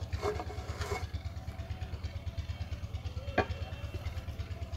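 An engine idling steadily, running with a quick, even low pulse. Over it, a wooden spatula scrapes rice from an aluminium pot into a clay bowl, with one sharper knock a little past three seconds in.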